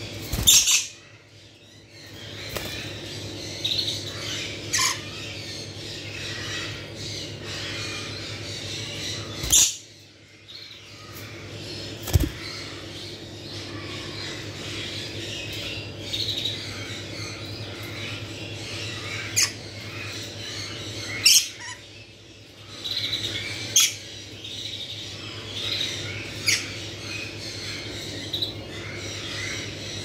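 Rainbow lorikeets squawking: about five loud, short, shrill screeches (near the start, around ten and twelve seconds in, and twice after twenty seconds) among frequent softer high chirps. A steady low hum runs underneath.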